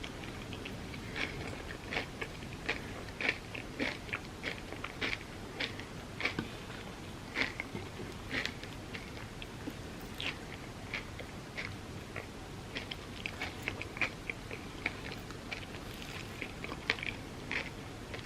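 Close-miked eating of Dubai chocolate crepes: steady chewing with irregular crunches and wet mouth clicks, a few every second.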